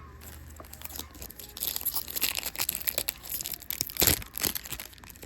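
Foil booster pack wrapper crinkling and tearing as a pack of trading cards is opened, in a rapid crackle with a sharp loud rip about four seconds in.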